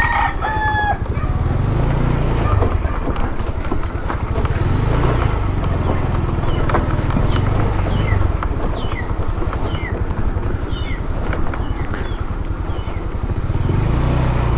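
Small motorcycle's engine running while riding, its low drone rising and falling with speed, mixed with wind noise on the camera mic. A rooster crows right at the start, and a few short high chirps come through in the middle.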